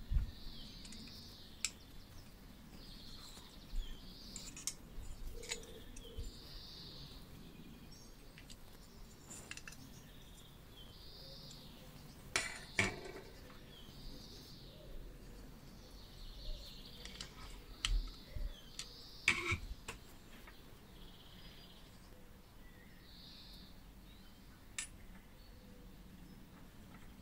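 Light metallic clicks and clinks of a screwdriver and small metal parts as an old hair drier's electric motor is taken apart by hand, scattered and irregular. The sharpest clinks come about halfway through and again about two-thirds of the way through.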